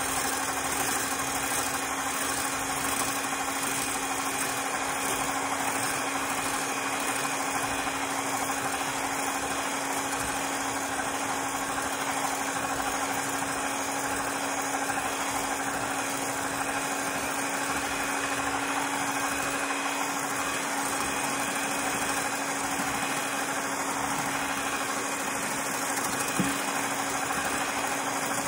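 Electric hand mixer (Hamilton Beach) running at a steady speed, its whisk beaters whipping egg whites in a glass bowl as sugar is added gradually. A constant motor whir with an even hum, and one brief click near the end.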